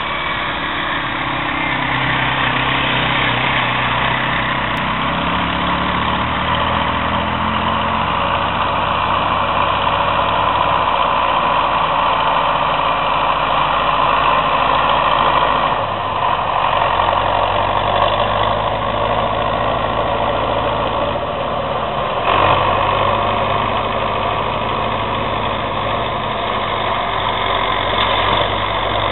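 Tractor engine running steadily as it pulls a rotary hay rake through the hay, with a steady hiss over it; the engine note shifts a little about midway.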